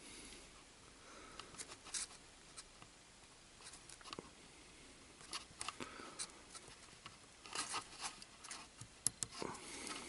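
Faint, irregular light clicks and scrapes of fingers handling a flat ribbon cable and a small plastic connector on a CD player's optical pickup while the cable is pushed in, busiest near the end.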